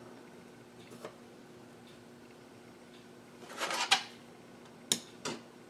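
Light clicks and clinks of metal parts handled on a workbench as a new bearing is fitted into a heated Husqvarna chainsaw crankcase half. A short rustle comes a little past halfway, over a faint steady hum.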